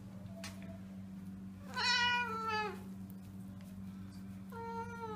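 Domestic cat meowing twice while wet and being shampooed in a bath: a longer call about two seconds in, the loudest sound, and a second one near the end, each falling in pitch as it ends. A steady low hum runs underneath.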